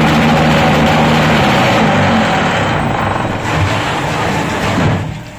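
Heavy machinery running with a loud engine drone that wavers a little in pitch, then drops away sharply about five seconds in.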